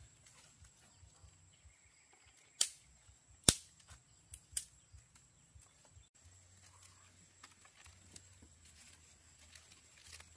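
Sharp knocks of something hard being struck: two loud ones a little under a second apart, then two lighter ones in quick succession, among faint scattered taps.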